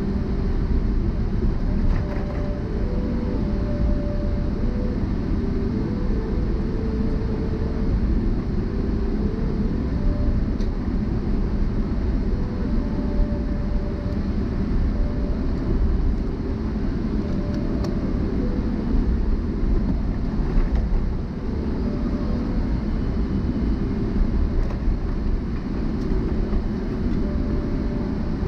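Jet airliner taxiing after landing, heard inside the cabin: a steady low rumble from the engines and the rolling aircraft, with short faint tones coming and going.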